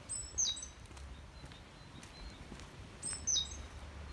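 A small bird calling twice, about three seconds apart; each call is short and high, stepping down in pitch. A low steady rumble runs underneath.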